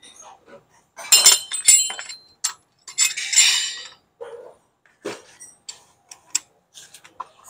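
Metal clinks and clanks of spring compressor clamps being fitted onto the coil spring of a Ford Fiesta front shock absorber. A run of sharp clanks comes about a second in and another cluster about three seconds in, followed by lighter scattered ticks.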